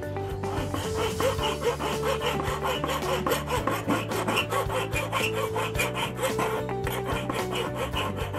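Hand file rasping back and forth across a small silver ring piece resting on a wooden bench pin, in quick, even strokes.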